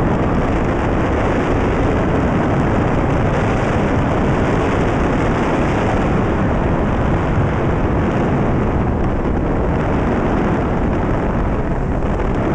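Steady rumble of a vehicle driving along an unpaved forest road, with tyre and wind noise and no breaks.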